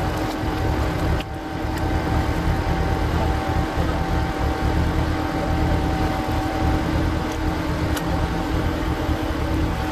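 Power tiller engine running steadily, driving a screw-cone log splitter, with a few sharp cracks over the steady drone. The audio plays at double speed, which raises the pitch.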